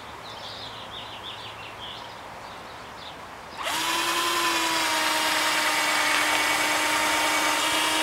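Cordless drill boring a starter hole into the end of a 2x4, so the screw won't split the wood. The motor starts suddenly about three and a half seconds in and runs at a steady whine, its pitch settling slightly lower just after it starts.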